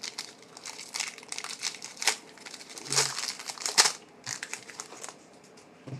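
Trading card pack wrapper being torn open and crinkled by hand, in a run of irregular crackles that are loudest about three to four seconds in and die down near the end.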